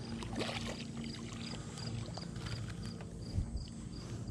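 A cricket chirping steadily, about three short high chirps a second, over a low steady hum, with a dull thump about three seconds in.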